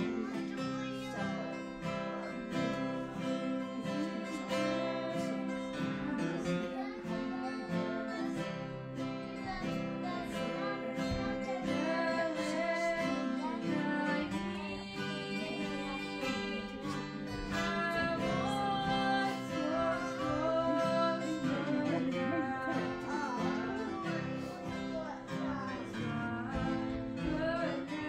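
Acoustic guitar strummed with a voice singing a worship song, played live through a PA and heard across the sanctuary.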